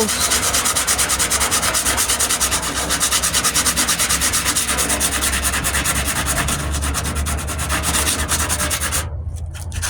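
Surform rasp shaving cured Bondo body filler on a truck's wheel arch, rubbed back and forth in rapid, even strokes. It pauses briefly near the end.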